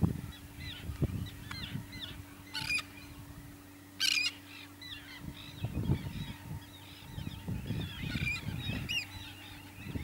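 Pied avocets calling: many short, clear calls overlapping one another, with two louder, harsher calls about two and a half and four seconds in.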